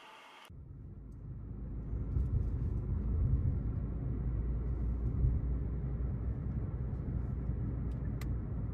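A steady low rumble that fades in over the first second or two, holds evenly, then cuts off abruptly at the end.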